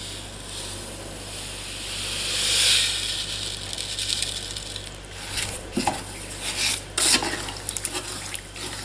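Raw cane sugar poured into a stainless steel pot of water and diced ginger, a hiss that swells and peaks about three seconds in, then a spoon clinking and scraping against the pot from about halfway through.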